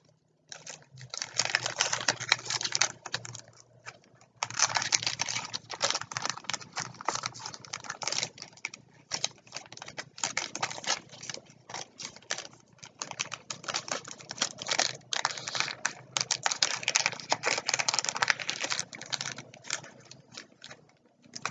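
Yu-Gi-Oh! trading cards and their packaging being handled: dense, rapid clicking and crackling rustle in stretches, with brief pauses.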